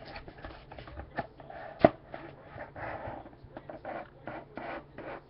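Trading-card packaging being handled and opened: irregular soft rustles and scrapes, with one sharp click about two seconds in.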